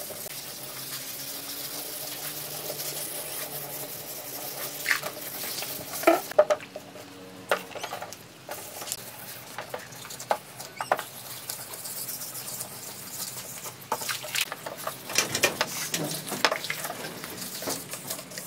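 Sandpaper on a hand sanding block being rubbed over a wet, primed car body panel, a steady scratchy hiss of wet sanding strokes with irregular sharper clicks and knocks.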